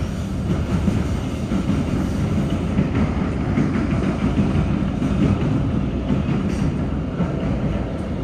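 Steady low rumble and fine rattle of an MBTA Blue Line subway car (a Siemens-built 0700-series car) running through a tunnel, heard from inside the car.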